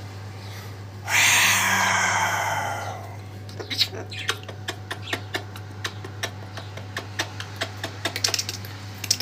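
Umbrella cockatoo giving one loud, harsh call lasting about two seconds. Then a run of small irregular clicks as its beak nibbles at a finger.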